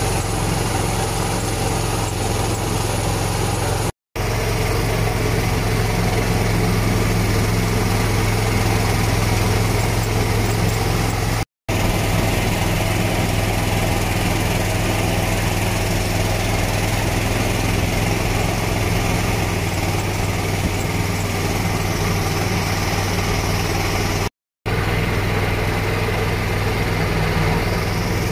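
A motorboat's engine running steadily at an even speed, with a constant low hum. The sound cuts out completely for a moment three times, at about 4, 11 and 24 seconds in.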